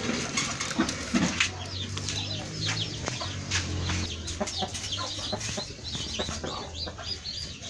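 A poultry flock: many chicks peeping in quick, high chirps, with chickens clucking.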